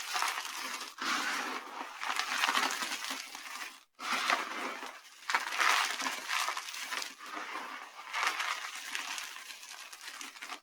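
Dry soap pieces being crushed, giving a run of crisp, grainy crunches in repeated squeezes, with a sudden break just before the middle.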